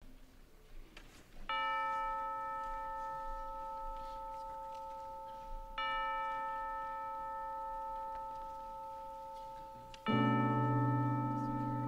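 Instrumental intro of a song: a bell-like chime note rings out and fades slowly, a second one follows about four seconds later, and near the end a fuller chord with low bass notes comes in.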